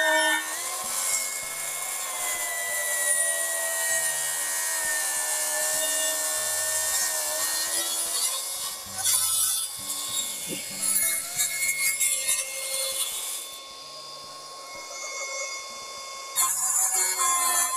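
Plunge-cut track saw ripping a birdseye maple board along its guide rail, a steady whining cut. About three-quarters through the cut it eases off for a few seconds, then bites in loudly again near the end.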